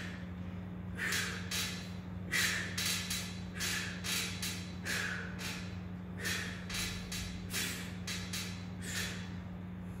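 A man's forceful, rhythmic breathing, quick sharp breaths through the nose and mouth, often in pairs, about one or two a second, paced by the effort of hanging knee raises, over a steady low hum.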